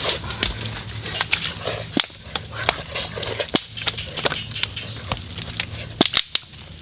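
Wooden sticks being laid between the stones of a fire hearth: a string of irregular knocks and snaps of wood on wood and stone.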